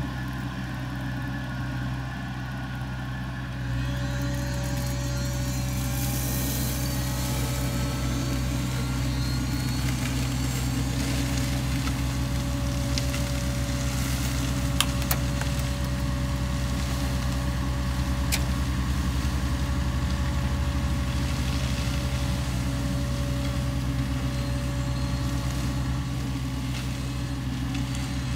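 Sany SY50U mini excavator's diesel engine running steadily while working a Mongo hydraulic flail mulcher. A steady whine comes in about four seconds in as the sound gets a little louder, and a few sharp clicks come around the middle.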